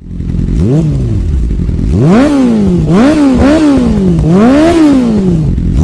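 Motorcycle engine revved loudly, about five blips of the throttle, each rising then falling back in pitch.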